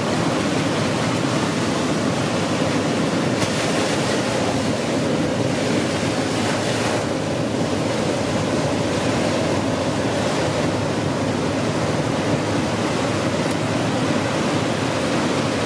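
Ocean surf breaking on the shore, a loud and steady rush of noise.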